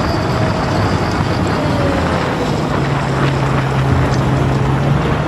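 A vehicle engine running steadily, with a low steady hum that sets in about two and a half seconds in.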